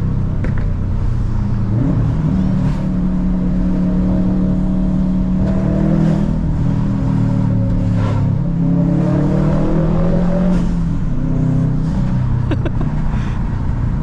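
A modified car's engine under way on a winding road, its pitch rising and falling several times as the car accelerates and eases off. A few brief clicks come near the end.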